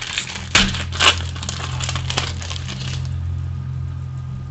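Trading cards and their foil pack wrappers being handled: a run of crackles and sharp clicks for about three seconds, then quieter, over a steady low hum.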